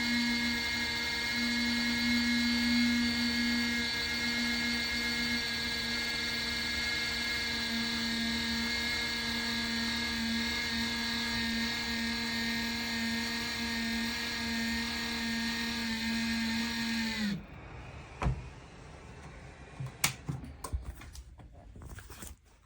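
Plug-in electric space heater's fan motor running with a steady whine, then switched off about seventeen seconds in, its pitch sagging as it spins down. A few clicks and knocks follow.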